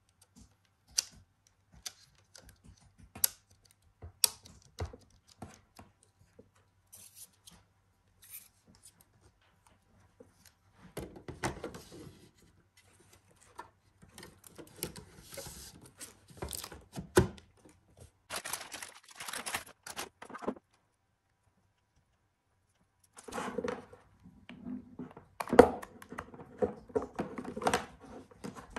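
Sharp plastic clicks and knocks as a hard drive is clipped into a tool-less plastic drive tray, then rustling and scraping as the tray is slid into a QNAP NAS drive bay. Near the end, more rustling and knocking as the power cord and adapter are handled.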